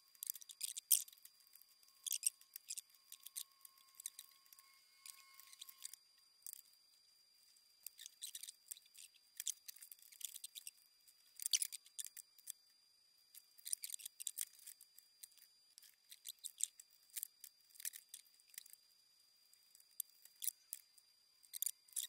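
Faint, scattered clicks and snips of small hand tools during soldering work, as a burnt resistor is replaced on the oscilloscope's chassis. A faint steady high tone runs for the first few seconds.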